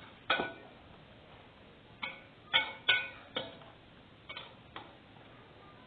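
A spoon clinking against a stainless steel bowl while stirring a raw egg mixture: about seven sharp clinks at uneven intervals, most of them bunched in the middle.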